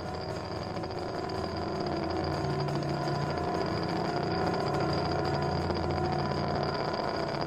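Amplified grand piano, its strings resonating and its mechanical noises picked up by microphones inside the instrument and played back through speakers. It makes a steady drone of several held tones over a hiss that slowly grows louder.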